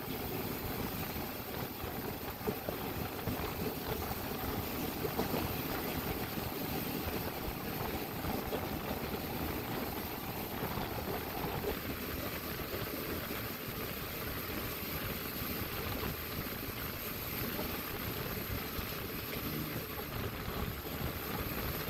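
Steady running noise of a moving passenger train heard from the carriage's open side: wheels on the rails and the rush of wind.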